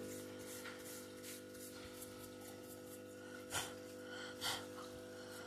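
Quiet room with a steady low hum, and two faint clicks about three and a half and four and a half seconds in, from small laptop parts being handled.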